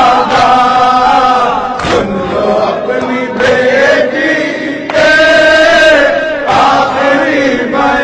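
Voices chanting a noha, a Shia mourning lament, in long held sung lines, a new phrase starting about every one and a half seconds.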